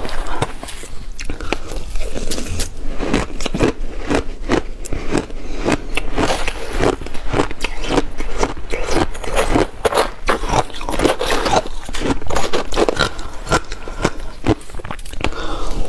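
Close-miked crunching and chewing of mouthfuls of crushed ice with passion fruit pulp, a rapid run of crisp crunches throughout, mixed with a metal spoon scraping and scooping the ice in the bowl.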